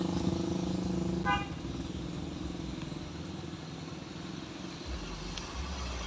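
A motorcycle engine running as it passes uphill, fading out about a second in, with one short horn toot just after. A low car-engine rumble then builds as cars climb the slope.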